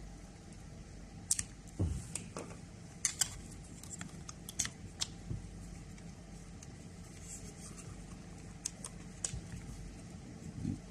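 Scattered light metallic clicks and clinks of small parts and tools being handled, over a low steady hum.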